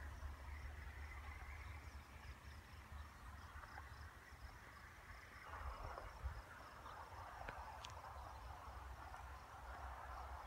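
Faint crickets chirping steadily in an evening field, over a low rumble of wind on the microphone. A few brief clicks come about six to eight seconds in.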